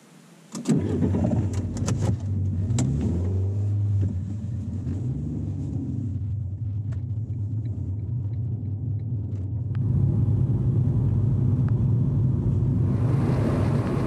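A car engine starting up under a second in, with a few clicks and knocks over the next couple of seconds, then the car pulling away and running steadily. The engine and road noise get louder about ten seconds in, heard from inside the cabin.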